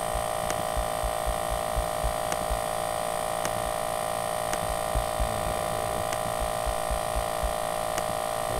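Steady electrical hum in the recording, several constant tones at once, with irregular low thuds and a few faint clicks.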